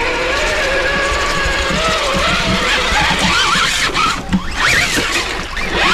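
Electric motor and gears of a scale RC truck whining, the pitch wavering up and down with the throttle, over a steady noise of water. From about three seconds in the whine sweeps up and down more quickly.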